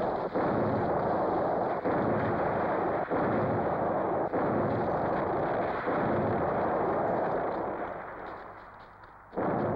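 A film-soundtrack barrage of explosions: blasts go off one after another, about every second and a half, in a continuous dense din that dies away near the end before another blast sets in. The sound is dull and muffled, with no crisp highs, like an old film soundtrack.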